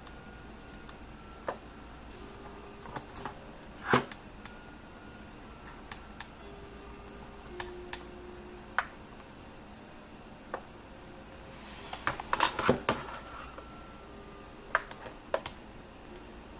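Scattered clicks and keystrokes on a computer keyboard and mouse, with one sharper click about four seconds in and a quick run of clicks around twelve seconds in.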